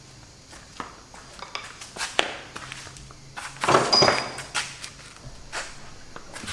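Scattered knocks and metallic clinks of tools and steel gearbox parts being handled, thickest about three and a half to four seconds in, with one short metal ring near four seconds.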